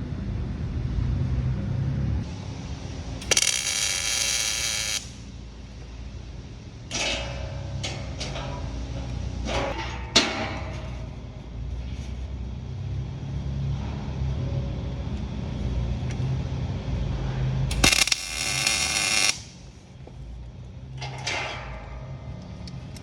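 Welding arc crackling in intermittent bursts, the two longest each about a second and a half, with shorter ones between and a sharp click about ten seconds in, over a steady low hum.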